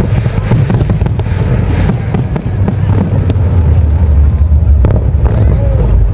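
Fireworks display: aerial shells bursting in rapid succession, a continuous deep booming with many sharp cracks over it.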